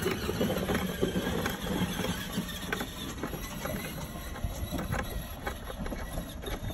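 Short hand ratchet with a 13 mm socket clicking in short, uneven strokes as a bolt beside the windshield is backed out.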